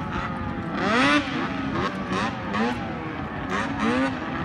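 Snowmobile engine revving on open water, its pitch rising and falling again and again, loudest about a second in.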